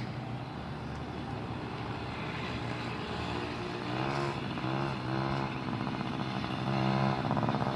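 Mini motorcycle's small engine running, its pitch rising and falling as it is revved a few times, getting louder near the end.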